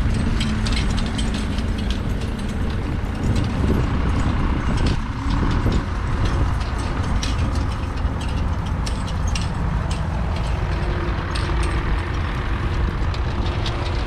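Pair of heavy horses pulling a single-furrow horse plough: harness trace chains and plough ironwork clinking in many short, irregular clicks over a steady low rumble, with a vehicle engine running steadily in the background.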